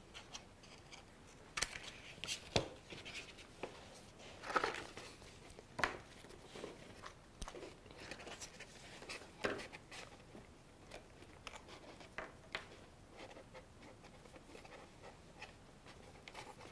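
Quiet paper-craft handling: a pen drawing on paper, then small scissors snipping out paper shapes, with scattered soft clicks and paper rustles.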